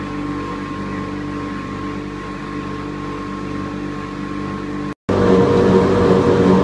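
Tyre retreading machine's electric motor running steadily, spinning a large tractor tyre against lever-held steel rollers: a steady hum with several even tones. It breaks off for an instant about five seconds in, then comes back louder and rougher, close to the spinning rollers.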